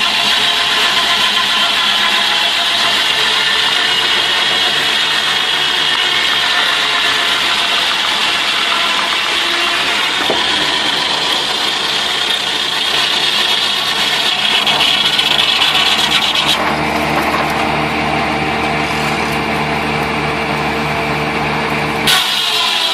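Engine-driven sawmill running steadily, its saw cutting through wood with a hum and a high hiss. The hiss drops away about 16 seconds in, and the sound cuts off abruptly near the end.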